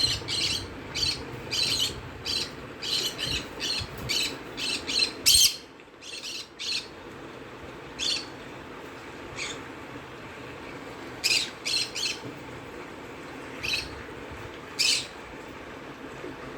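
Bird chirps: a quick run of short, sharp, high calls for about five seconds, then scattered single and paired chirps a second or more apart, over a steady low hum.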